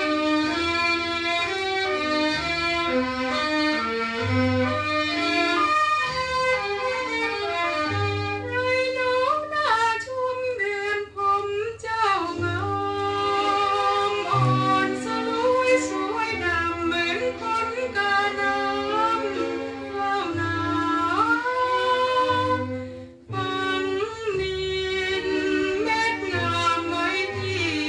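Music from a vinyl record of an old Thai popular song: violins carry a melody with vibrato over a steady, pulsing bass line.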